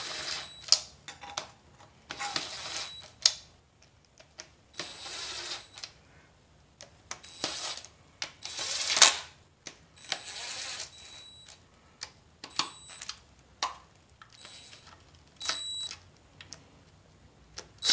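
Cordless power tool on a socket extension spinning the oil pan bolts down in about six short bursts of a second or so each, snugging them until they bottom out before torquing. Sharp clicks of the socket and bolts come between the bursts.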